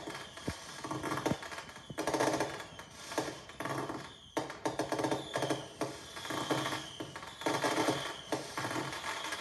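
Fireworks crackling and popping: a dense run of quick, irregular cracks coming in clusters.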